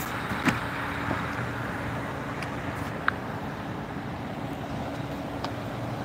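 Steady road traffic noise from cars passing on the road below, with a faint steady low hum underneath. A short click about half a second in and another brief tick about three seconds in.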